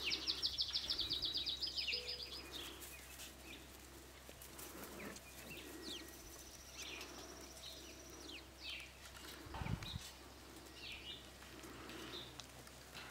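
Outdoor birdsong: a rapid high trill for the first couple of seconds, then scattered high chirps and calls, with a lower call repeating underneath. A dull thump about ten seconds in.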